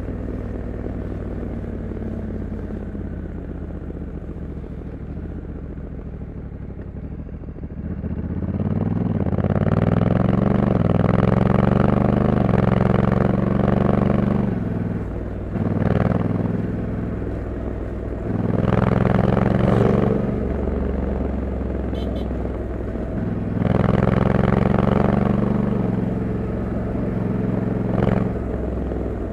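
Honda Africa Twin 1100 DCT's parallel-twin engine through its stock exhaust on the move: a low, steady run for the first several seconds, then louder, rising revs with the dual-clutch gearbox shifting up on its own, easing off and pulling again twice more.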